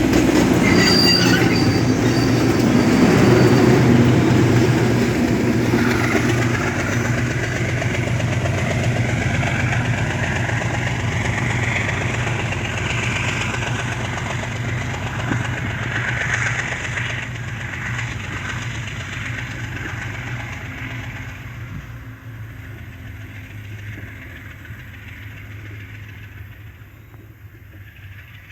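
Loaded freight train of grain wagons rolling past on the grade: a steady low drone with wavering wheel squeal from the rails. The sound fades steadily as the train moves away.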